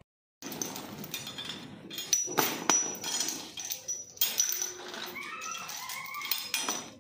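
Heavy iron tow chain clanking and chinking as it is handled at a tractor's rear hitch, with a run of sharp metal knocks.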